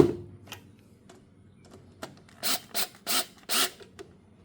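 Socket ratchet tightening the bolts of a new ignition coil on a small engine: a sharp click at the start, then four short rasping ratchet strokes in quick succession a little past halfway.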